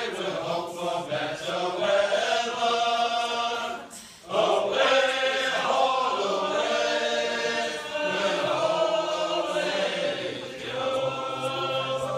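A group of singers singing a sea shanty together, holding long drawn-out notes, with a short break about four seconds in.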